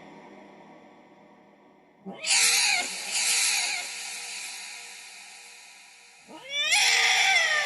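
Domestic cat meowing twice, about two seconds in and again about six seconds in, the second call rising then falling in pitch. Each meow is processed with heavy reverb and trails off in a long echoing tail.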